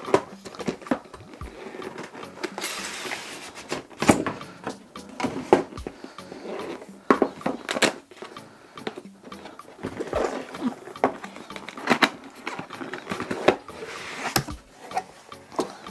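Handling noise of a graphics card being unboxed: irregular knocks, clicks and rustling of packaging, with a longer rustle about three seconds in.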